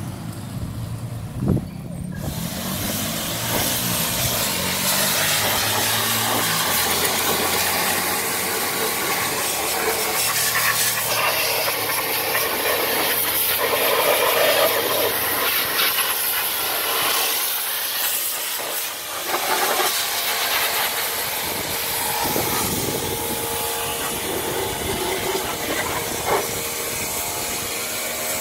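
High-pressure washer spraying water into a car's wheel arches and underbody: a steady hiss that starts about two seconds in.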